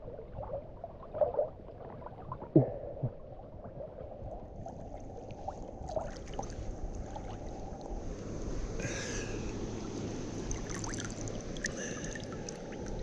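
River water sloshing and splashing around a camera held at the surface, heard muffled, as a dog paddles alongside, with a few sharper splashes in the first three seconds.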